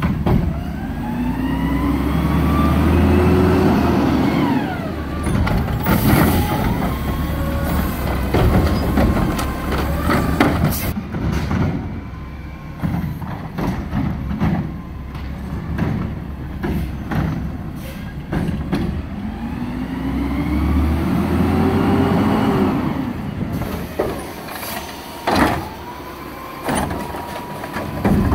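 Natural-gas Peterbilt garbage truck with a McNeilus front-loader body and Curotto-Can automated arm working a curbside route: the engine revs up and falls back twice as the hydraulics lift, with a steady hydraulic whine. Repeated clanks and bangs of plastic wheeled carts being gripped, lifted and dumped come in two busy spells, midway and near the end.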